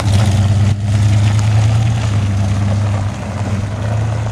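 Ford pickup's 351 high-output V8 running through a new MagnaFlow muffler as the truck pulls away: a deep, steady exhaust note that fades in the last second or so as it drives off.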